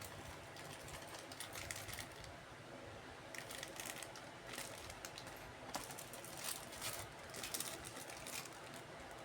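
Plastic kit packaging and parts being handled: crinkling and light clicks in several short bursts.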